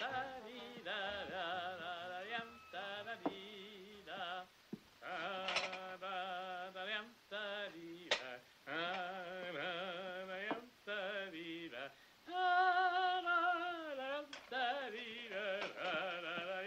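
A voice singing a wordless tune in long notes with a strong wavering vibrato. A few sharp clicks are scattered through it.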